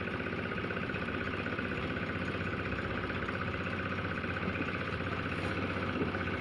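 Small engine running steadily at an even idle, with a fast, regular pulsing hum.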